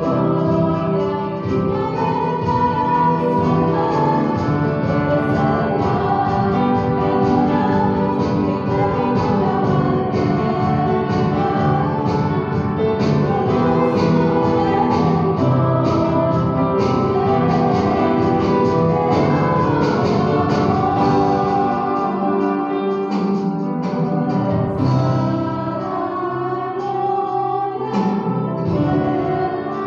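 Music: a song with singing over guitar accompaniment, at a steady level.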